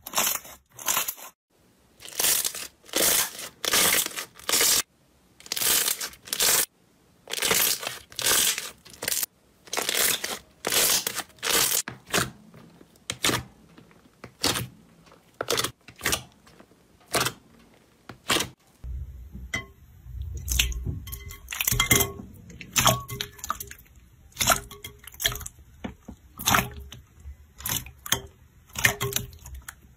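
Hands squeezing and pressing slime, giving a run of sticky squelching and crackling sounds in short bursts, a few a second. About two-thirds of the way through, the sounds turn deeper, with many small pops, as a different slime is pressed.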